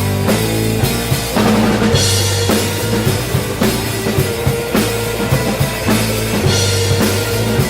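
Live blues band playing an instrumental passage: drum kit keeping a steady beat with bass drum, snare and cymbals over bass and guitar.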